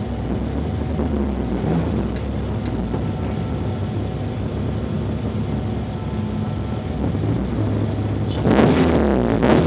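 Honda Civic engine heard from inside the car, running steadily as a low drone. About eight and a half seconds in, louder electronic music cuts in over it.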